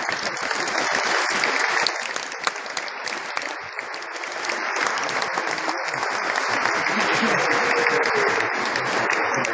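Crowd applauding, with a few voices calling out over it; the applause dips slightly about four seconds in, then swells again.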